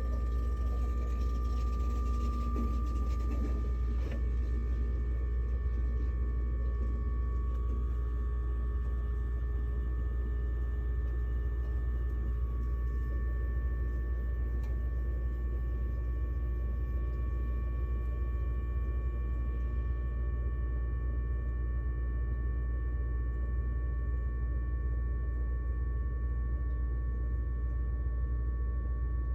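Maytag refrigerator compressor running with a steady low hum, a few faint steady whining tones above it.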